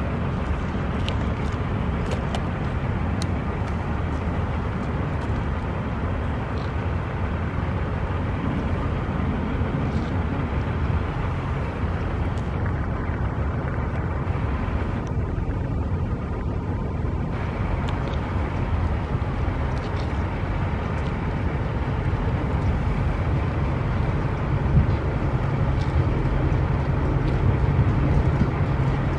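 Diesel switching locomotive running steadily as it moves a string of tank cars, a continuous low engine rumble with a few faint clicks.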